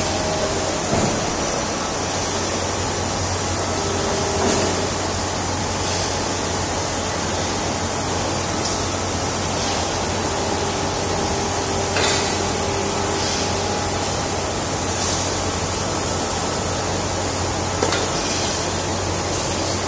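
Aluminium die casting machine running: a steady hum under an even hiss, with a few short knocks spread through.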